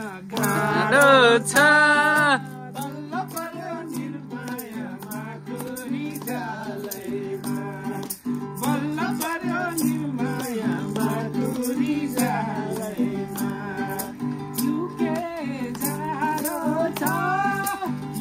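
Nepali dohori folk song: singing with a wavering vibrato over plucked strings and a steady shaker rhythm, loudest in a long held sung phrase near the start.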